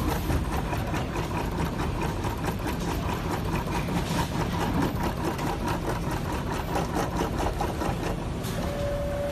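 Automatic LED-strip soldering machine running, a steady mechanical hum with a rapid run of fine clicks. Near the end a steady beep-like tone and a hiss come in.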